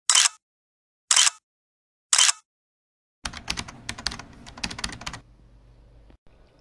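Keyboard-typing sound effect: single short clicks about once a second, then a quick run of clicks about three seconds in, over faint room noise.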